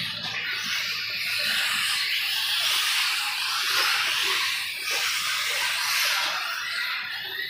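1/8-scale electric RC buggies racing on the track: a hissing rush of tyres and motors that swells and fades several times as the cars pass.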